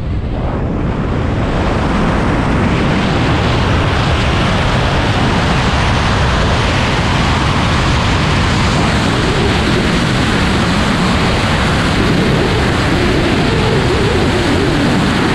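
Wind rushing over the camera microphone of a wingsuit flyer in flight. It builds over the first couple of seconds as airspeed picks up after the exit, then holds as a loud, steady rush.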